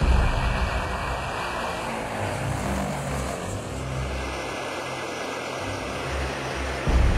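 Tupolev Tu-95 bomber's four contra-rotating turboprop engines running steadily, heard first from outside as it takes off and then from inside the cockpit in flight, with a jump in loudness near the end.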